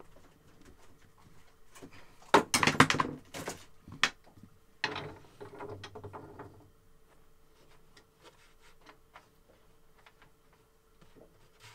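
Knocking and rubbing as a hand and arm rummage around inside a wooden boat stowage locker, checking what lies behind the bulkhead. There are two bursts of knocks, about two seconds in and again around five seconds, then only scattered small clicks.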